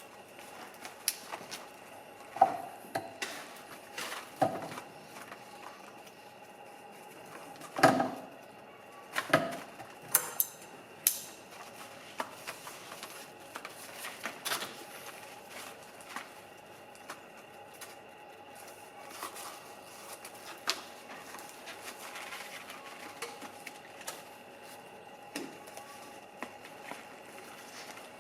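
Irregular knocks, taps and clicks of objects being handled by hand on a workbench, with a few louder knocks in the first half, over a faint steady hum.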